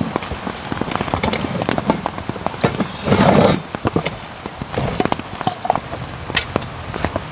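Rain pattering, with many irregular knocks and taps over it and a brief louder rustle about three seconds in.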